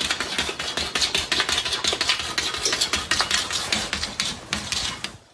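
A rapid, busy clatter of many small clicks and knocks, like hard small objects rattling and scraping together, going on without a break.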